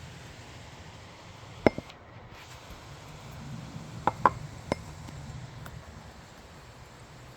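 Light rain falling as a steady hiss, with a handful of sharp clinks: two about two seconds in and three close together a little past the middle.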